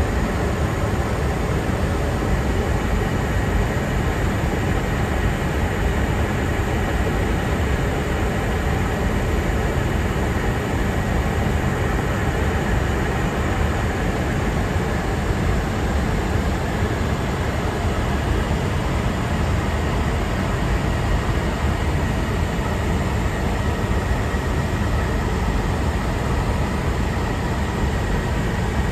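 Airbus A350 at cruise, heard from inside the flight deck: a constant, even rush of airflow noise, heaviest in the low end, with a faint steady whine above it.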